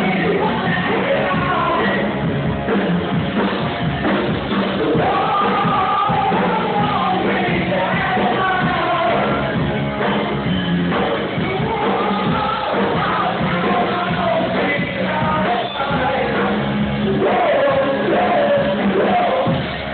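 A rock band playing live, with a singer's voice wavering over the band throughout.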